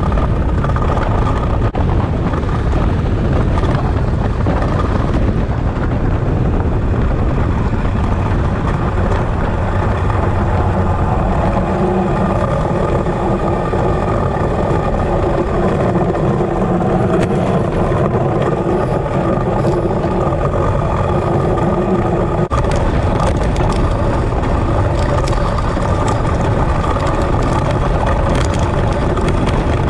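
Ice boat sailing at speed: steel runners rumbling and hissing over lake ice, with heavy wind buffeting on the hull-mounted camera. A humming tone runs through the middle and stops abruptly with a click about two-thirds of the way through.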